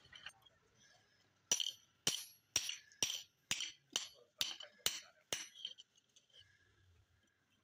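Hand hammer striking a red-hot axe head on a steel anvil: nine blows at about two a second, starting about a second and a half in, each with a bright metallic clink.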